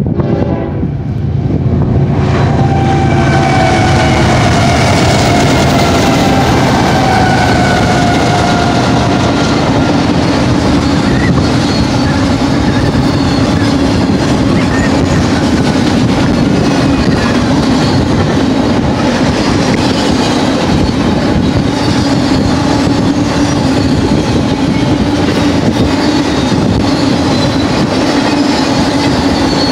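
Fast BNSF intermodal freight train passing close by, led by a six-unit lashup of GE and EMD diesel locomotives whose engine sound falls in pitch as they go by over the first several seconds. Then a long, steady rush of double-stack container and trailer cars rolling on the rails with wheel clickety-clack.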